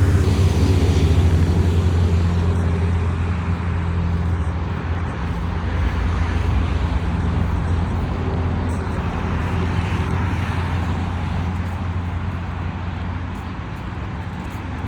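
A steady, low engine drone with a hiss over it, slowly fading toward the end.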